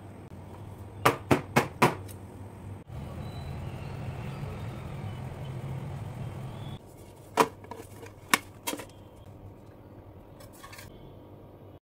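Sharp knocks and clicks of an aluminium cake tin handled on a kitchen counter: four quick clicks about a second in, a steady low hum in the middle, then a few louder knocks and faint taps near the end as the tin is turned upside down to release the cake.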